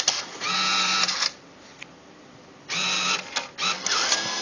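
Bitcoin ATM's bill validator taking in a banknote: its motor whirs in two runs, each a second or two long, with a short pause between.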